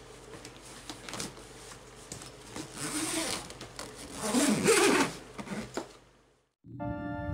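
Zipper of a soft fabric suitcase being drawn shut around the lid, a rasping pull that is loudest about four to five seconds in. Music starts near the end.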